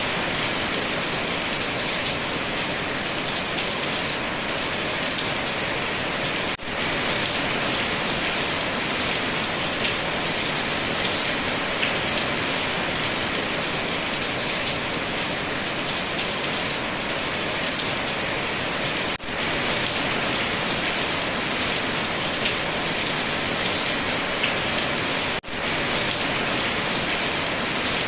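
Steady heavy rain: a dense, even hiss with fine scattered drop patter. The sound dips out for an instant three times.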